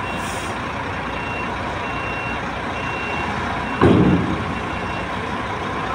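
Reversing alarm of a Sany tractor head beeping steadily, about once a second, over the low running of its diesel engine as the truck backs under a trailer. About four seconds in the beeping stops and a short, loud burst of noise comes.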